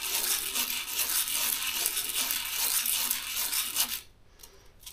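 Used copper crush washer rubbed in figure-eight strokes on fine 220-grit sandpaper, scraping steadily as the bulges from being crushed are lapped flat; the scraping stops about four seconds in.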